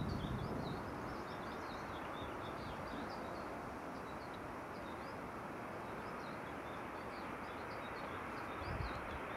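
Small birds chirping in quick, irregular, high-pitched calls over a steady rushing background noise.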